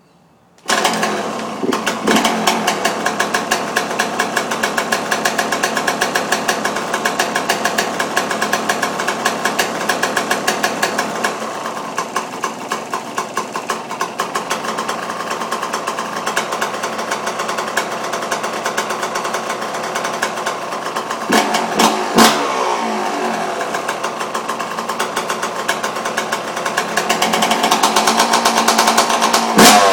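Yamaha YZ125's 125 cc two-stroke single-cylinder engine catching about a second in on a cold start with the choke on, then idling with a rapid popping beat. It is revved briefly a little past the middle and again near the end.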